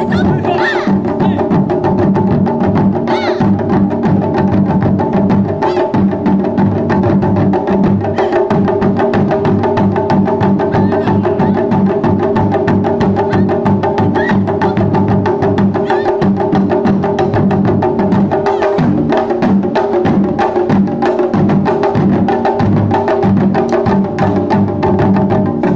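Japanese taiko drums played by an ensemble in a fast, steady, continuous rhythm of sharp strikes.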